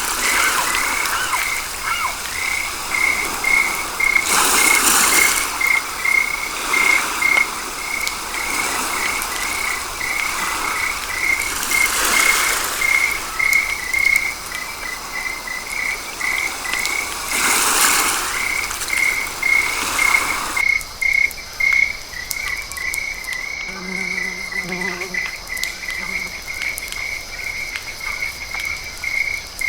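A high chirping call repeating evenly, about two to three times a second, like a frog or insect chorus, with a few brief rushes of noise over it.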